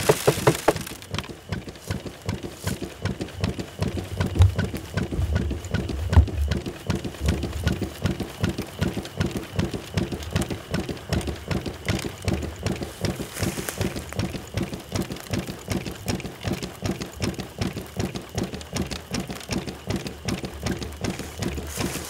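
Keene dry washer running, its bellows pulsing in a fast, even beat of about four a second that rattles the riffle tray. The usual metal knocker block at the back has been replaced with rubber, which makes it quieter than usual.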